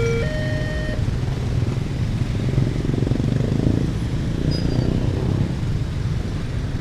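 Railway level-crossing siren switching back and forth between two notes, cutting off about a second in. A steady low rumble of vehicle engines carries on after it.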